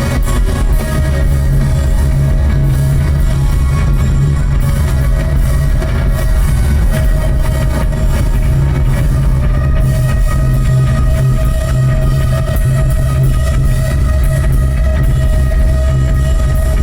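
A rock band playing live, loud and steady, with a heavy bass.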